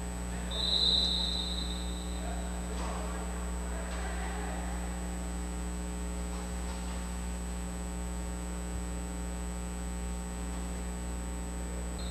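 Steady electrical mains hum on the recording, with one short, high referee's whistle blast about half a second in, lasting about a second.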